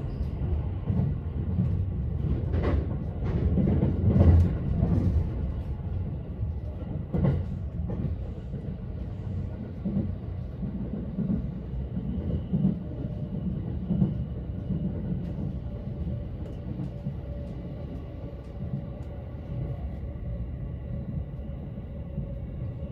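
Haruka limited express train running, heard from inside the passenger car: a steady low rumble of wheels on rail, with several sharp knocks in the first eight seconds. A faint steady hum joins in the second half.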